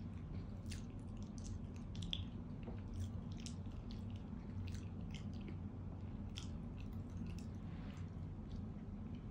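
A cat chewing food: a run of small, irregular crunches and clicks, several a second, with a low steady hum underneath.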